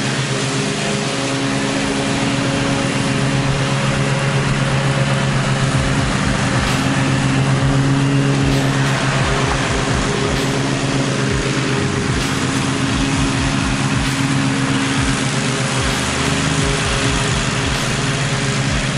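Gravely zero-turn lawn mower's engine running at a steady pitch while it mows, slightly louder about eight seconds in as it passes nearest.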